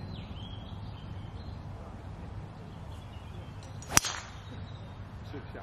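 Golf tee shot: the clubhead strikes the ball with a single sharp crack about four seconds in.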